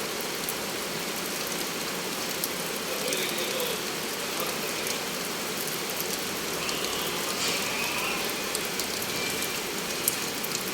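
Heavy rain falling steadily: an even hiss with many sharp drop ticks on hard surfaces, and one louder tick near the end.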